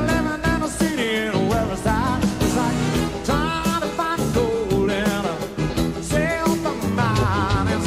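Live rock band performance of an upbeat piano-led song: a male lead singer over piano, bass and drums with a steady beat.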